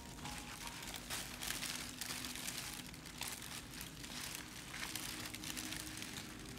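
Thin plastic bag and paper wrapping crinkling and rustling as hands unwrap a bundle of aquarium plants, a continuous rustle full of small crackles.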